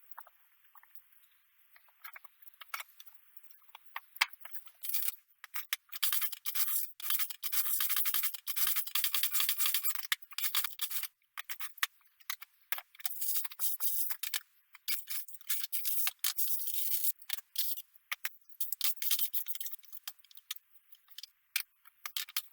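Cat digging in a litter box, its paws scratching and raking the litter so that the granules rattle and scrape in quick, irregular strokes. The strokes are sparse at first and grow busy from about five seconds in.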